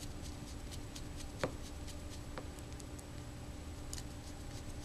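Small screwdriver turning a tiny screw with a spacer into a model helicopter's plastic rotor head: faint scattered ticks and clicks, with a sharper click that rings briefly about one and a half seconds in, over a low steady hum.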